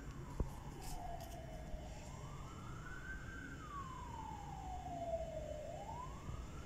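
A siren wailing, its pitch sliding slowly up and falling back down again and again, each rise or fall taking about two seconds. A single sharp click about half a second in.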